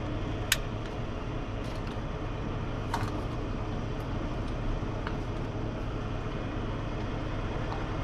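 Steady low rumble of an idling diesel semi-truck engine, with a couple of sharp clicks about half a second and three seconds in.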